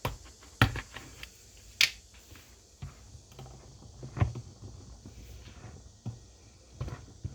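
Plastic conditioner bottle handled in a sink: irregular clicks and knocks as it is capped and shaken with hot water.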